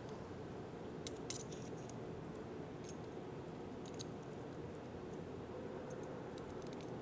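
Faint metal clicks and taps from handling a key in a pin-type key profile gauge, its sliding metal pins ticking against the key and each other. There are two sharp clicks about a second in, another near four seconds and a few light ones near the end, over a steady low hum.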